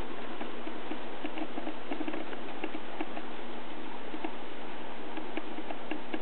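N scale model train running on its track: irregular light clicking from the wheels on the rails over a steady low hum.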